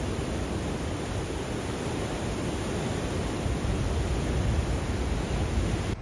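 Steady noise of sea surf washing over a rocky shore, with wind buffeting the phone's microphone in a low, uneven rumble. The sound drops abruptly at the end.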